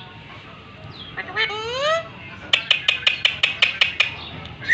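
A pet parakeet calling: one rising call, then a quick run of about ten short, sharp clicking notes over a second and a half.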